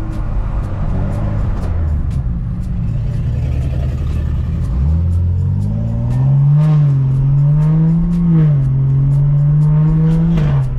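BMW 335i's turbocharged inline-six with a muffler delete and catless downpipe, driving: the engine note sits low, climbs sharply about five seconds in as the car accelerates, holds high with small rises and dips, then falls away near the end. It has the loud, raspy note of a near straight-piped exhaust.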